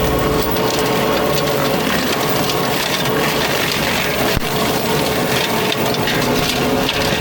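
Fecon forestry mulcher head grinding brush and wood, a dense splintering noise over a steady whine from the spinning drum and machine. A single sharp crack comes about four seconds in.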